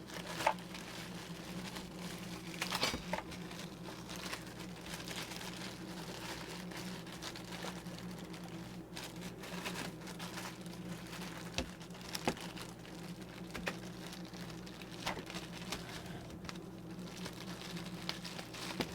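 Plastic bag crinkling and rustling in irregular bursts as a new HEPA filter cartridge is unwrapped, with a few sharp clicks over a steady low hum.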